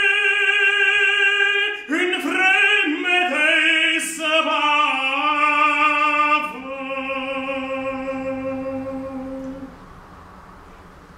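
A man singing a Romanian hymn solo in a full, operatic voice, holding long notes. Near the end he holds one long final note that fades out about ten seconds in, leaving only faint room noise.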